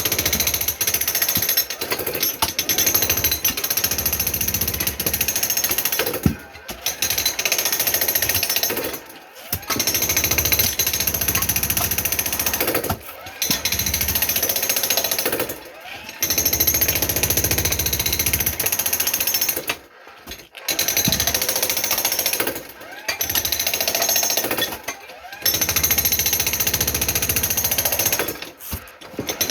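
Jackhammer breaking concrete, run in bursts of a few seconds with brief pauses between them. This is typical of cutting out a basement slab for an interior drainage trench.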